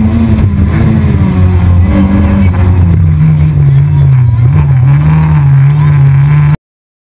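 Renault Clio A7 rally car's engine heard from inside the cabin, running hard under load. Its pitch drops about three seconds in and then wavers up and down. The sound cuts off suddenly near the end.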